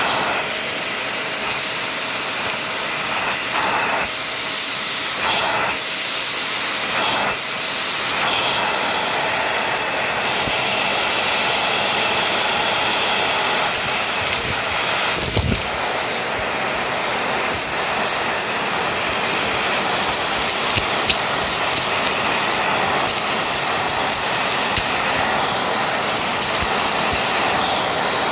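Vacuum cleaner running steadily over a shaggy rug: an even rushing noise with a thin, steady high whine. There is a dull bump about halfway through, and scattered clicks in the second half.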